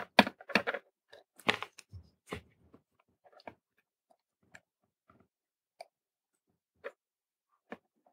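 Small clicks and crackles from hand-soldering a component lead onto a circuit board. There is a cluster of them in the first couple of seconds, then a single tick about once a second.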